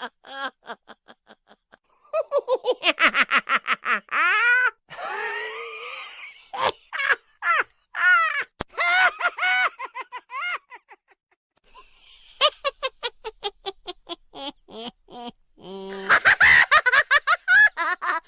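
A string of different comic laughter sound effects played one after another: voices cackling in rapid ha-ha-ha pulses, some high-pitched, with brief pauses between the laughs.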